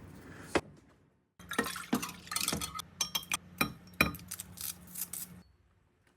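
Dishes, glassware and metal cutlery clinking and knocking in a quick irregular run, as at a table being set or eaten from.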